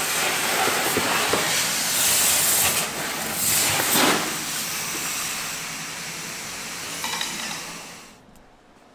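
Car-wash pressure washer spraying water into a snowmobile fuel tank to clean out the inside: a loud, steady hiss of spray that surges a couple of times and dies away near the end.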